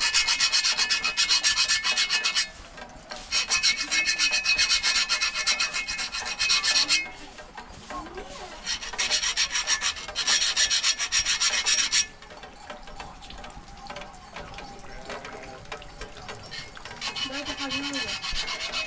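Rapid, rasping scraping strokes in four bursts: from the start to about 2.5 seconds in, from about 3 to 7 seconds, from about 9 to 12 seconds, and again from about 17 seconds to the end.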